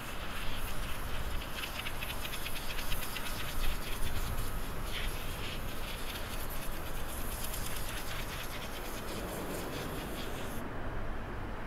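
Distant jet engine noise from a Boeing 737-800's CFM56 turbofans as it starts its takeoff run, a low rumble under a steady hiss with rapid insect-like buzzing. The high hiss drops out near the end.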